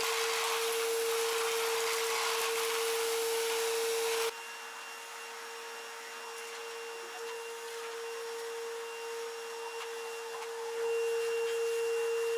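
Vacuum cleaner running steadily: a constant humming tone over a rush of air. About four seconds in the rush drops abruptly and the sound gets quieter, then grows louder again near the end.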